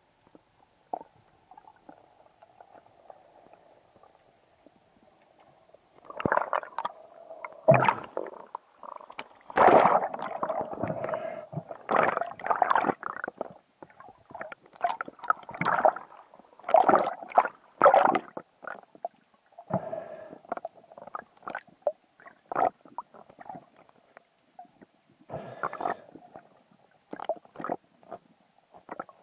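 Underwater handling noise picked up by a camera in a waterproof housing: a faint steady hum for the first few seconds, then irregular gurgles, knocks and sharp clicks as the diver works the spear line and the speared fish.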